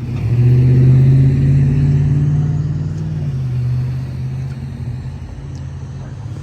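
A motor vehicle's engine running close by with a steady low hum, loudest about a second in, then slowly fading.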